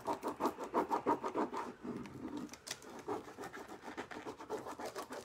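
Fingers rubbing a rub-on transfer onto a paper lampshade, a quick run of short scratchy strokes, several a second, which grow softer after about two seconds.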